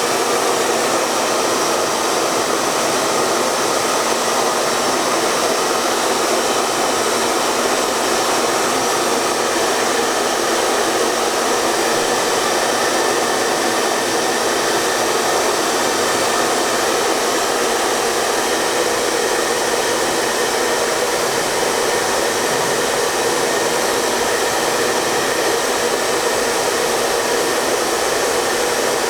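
Hair dryer running steadily: an even, unbroken rushing noise that keeps the same pitch and level throughout, with little deep rumble.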